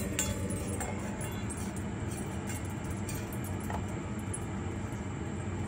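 Dog eating kibble from a stainless steel bowl, with a few faint clinks, over a steady low mechanical hum.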